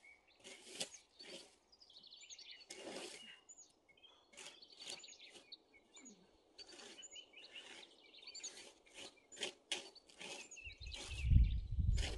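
A songbird sings a short trilled phrase again and again, every couple of seconds, over brief scratchy rustling noises close by. Near the end comes a low rumble, the loudest sound here.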